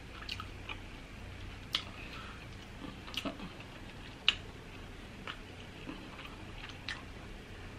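Quiet eating sounds: a scattering of short, sharp clicks and smacks, spaced irregularly, as seafood is chewed and picked by hand from a platter.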